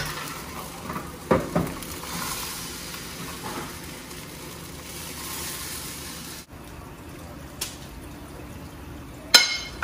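Banh xeo batter sizzling in a hot frying pan, with two short metal clanks about a second and a half in. The sizzle drops off suddenly past the middle, and a sharp metal clink of a ladle on a pan comes near the end.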